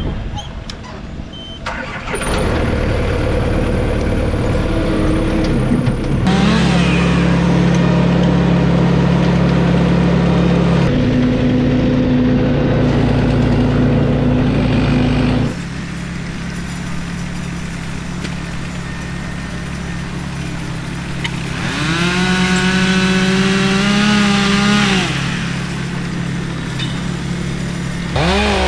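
Chainsaw running at high revs for long stretches, dropping back to a lower drone and then revving up and back down again near the end.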